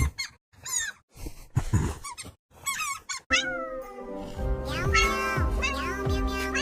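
A cat meowing several times in short, separate calls; about three seconds in, music with held notes starts, and the meows continue over it.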